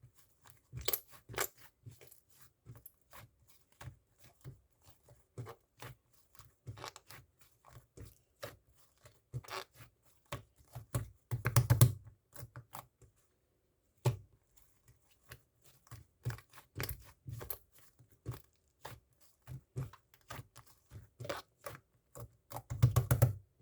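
Irregular small clicks, taps and crinkly rustles of something being handled close up, with louder runs of crackling about eleven seconds in and again near the end.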